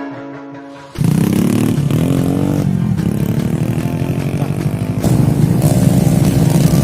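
Guitar music ends about a second in, then motorcycle engines run and rev loudly, their pitch rising and falling.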